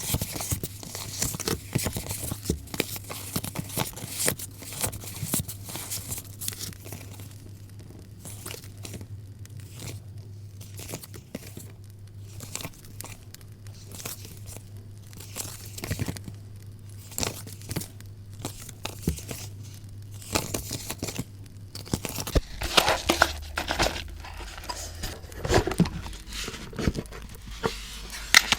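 Paper rustling and crinkling as sheets and paper stationery are handled close to the microphone, with many small irregular crackles, busier and louder near the end.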